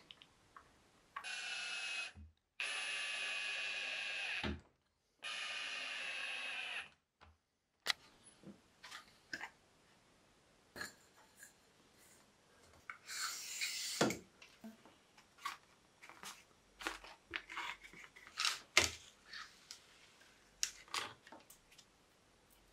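Small DC motor run in three short bursts of a few seconds each, switched on and off abruptly. Later comes about a second of a knife scoring along a metal ruler, then scattered sharp clicks and snaps.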